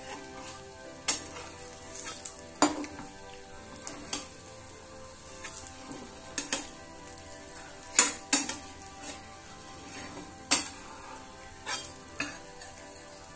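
Sweet rice-and-jaggery batter frying in ghee on a dosa griddle: a low, steady sizzle broken by irregular sharp pops and crackles.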